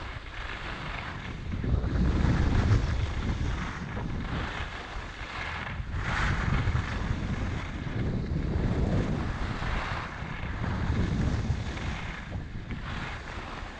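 Wind buffeting the microphone of a GoPro Hero 6 Black action camera while skiing, a low rumble that swells and eases several times, loudest about two seconds in, over a steady hiss of skis running on snow.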